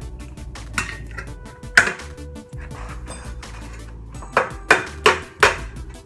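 Metal tools clinking and clanking against metal casting gear as molten alloy is readied for a pour: a couple of ringing clanks in the first two seconds, then a quick run of four sharp clanks near the end.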